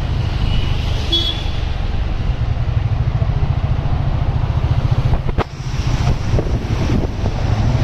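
Steady low rumble of a road vehicle on the move, with a single short click about five seconds in.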